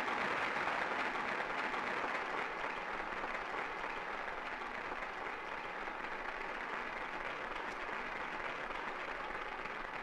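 A large audience applauding steadily, easing off slightly as it goes on.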